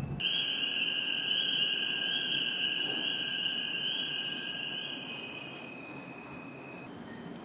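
Steady high-pitched ambient tones, several held together, fading and dropping out about six seconds in; faint rapid high chirping follows near the end.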